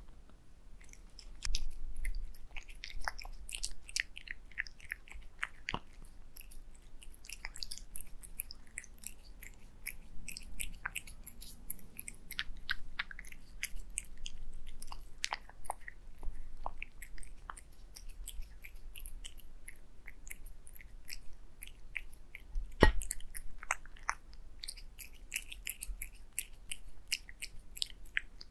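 Cats eating wet food and egg yolk off a glass plate: a dense run of small wet clicks and smacks from chewing and licking, with one sharper knock a little past three-quarters through.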